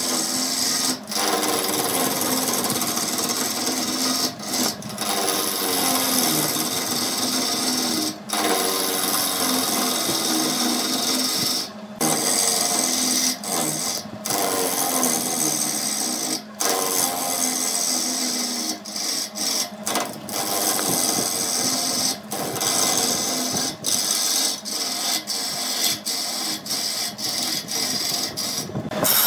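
Electric power tool running steadily while working wood, the motor's hum and the scraping of the wood, broken by many short pauses, more often in the last few seconds.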